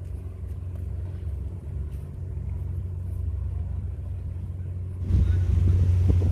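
Steady low engine hum that becomes louder and rougher about five seconds in.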